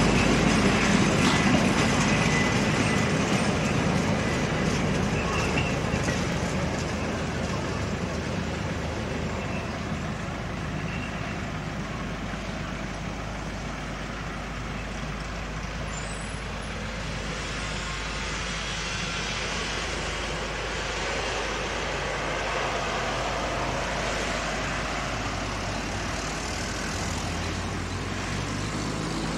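Metre-gauge passenger train running past, its wagons rumbling on the track, loudest at first and fading as the last coach goes by and the train moves away.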